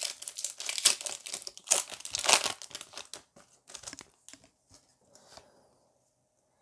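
Foil Pokémon booster pack wrapper crinkling and tearing as it is opened, a dense crackle for about three seconds, followed by a few quieter rustles and ticks of cards being handled.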